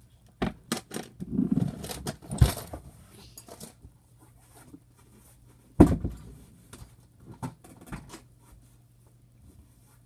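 Knocks, clatters and rustling as a metal box with a handle is picked up off a wooden floor and carried about, mixed with footsteps. A single loud thump about six seconds in is the loudest sound, with a few lighter knocks after it.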